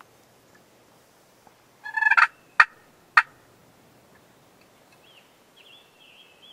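Wild turkey gobbling once about two seconds in, a short, fast rattling call, followed by two sharp clicks about half a second apart. Faint songbird chirps come near the end.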